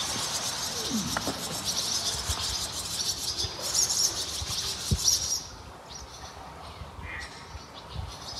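Birds chirping and singing in a dense high-pitched chatter that cuts off suddenly about five seconds in, leaving a few fainter, scattered chirps.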